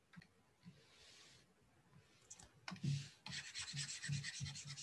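Stylus on a pen tablet: a faint short stroke about a second in, then from about three seconds in a rapid back-and-forth scrubbing as a line of handwritten notes is rubbed out.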